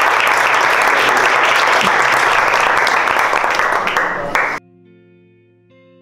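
A roomful of people applauding, loud and dense, cutting off abruptly about four and a half seconds in. Quiet instrumental music with plucked notes follows.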